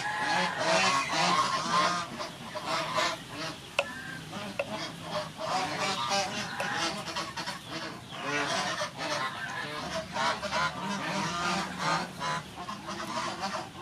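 Many birds calling at once, a continuous jumble of overlapping calls, with a few sharp clicks from a knife cutting on a wooden chopping board, the clearest about four seconds in.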